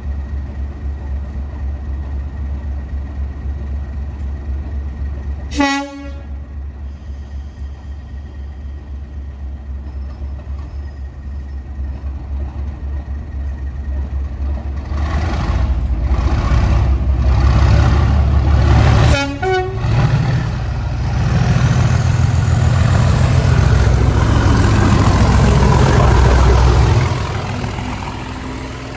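Class 37 diesel locomotives' English Electric V12 engines running, growing loud from about halfway through as they work past and fading near the end. There are two short horn blasts, about six seconds in and again about nineteen seconds in.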